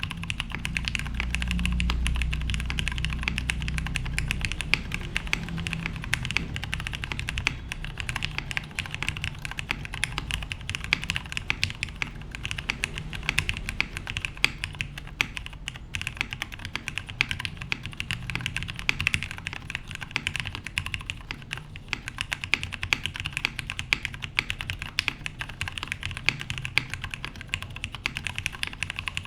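Continuous typing on a plateless, PCB-mount Jer 1813 mechanical keyboard with Cherry "new" Nixie switches lubed with Krytox 205g0 and GMK keycaps: a fast, uneven stream of key clacks with some heavier strokes. A low rumble sits under the typing for the first few seconds.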